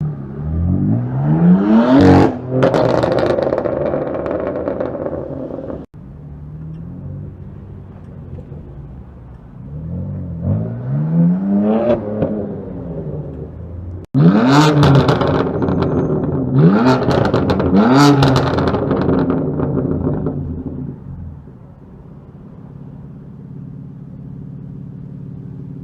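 Engine of a 550+ bhp F80 BMW M3, its twin-turbo straight-six revved about five times. The pitch sweeps up sharply and falls back each time, and it returns to a steady idle between revs and near the end. Loud crackles and pops come on the overrun after the revs, with three quick blips in a row in the middle.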